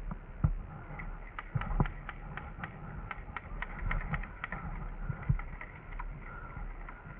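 Scattered sharp clicks and pops of airsoft fire, with three louder thumps about half a second, nearly two seconds and five seconds in.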